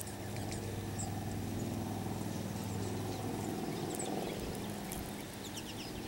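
A steady low engine hum, fading away after about three and a half seconds, with faint short chirps of small songbirds scattered over it.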